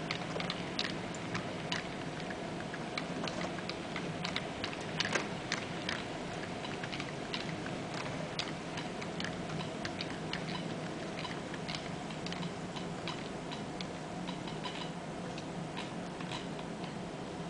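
HO scale model train of covered hopper cars rolling past, the wheels clicking irregularly over the rail joints and turnouts, several clicks a second, over a steady low hum.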